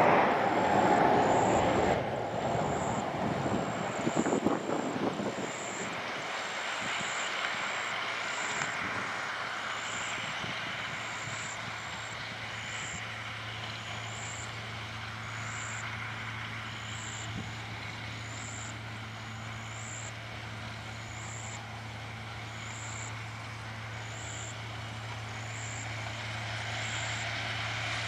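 Heavy machinery of a mechanised sugarcane harvest running: a loud noisy rush for the first couple of seconds, then a steady engine drone with a low hum.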